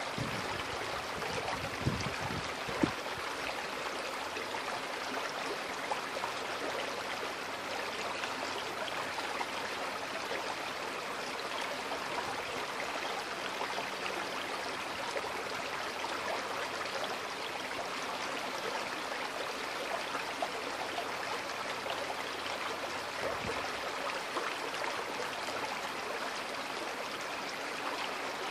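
A shallow creek's water running steadily over stones, a continuous babbling rush. Two brief thumps stand out about two and three seconds in, and a short low rumble comes near the end.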